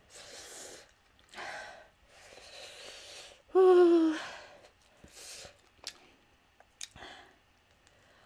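A woman breathing hard through her mouth after eating extremely spicy hot wings, several airy hissing breaths in and out against the burn. About three and a half seconds in she lets out a short falling voiced "ooh", the loudest sound. Two small mouth clicks follow later as she goes back to eating.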